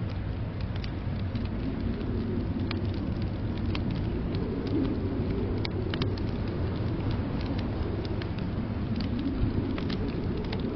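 A wood fire crackling, with scattered sharp pops, over a steady low rumble of blizzard wind.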